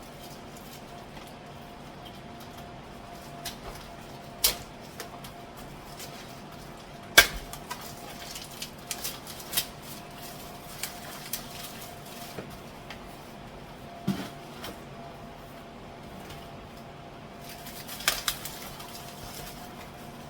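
Irregular knocks and clatters of jars, bottles and containers being set down and moved about on kitchen cupboard shelves, with the bump of a cupboard door; the sharpest knock comes about seven seconds in. A faint steady hum runs underneath.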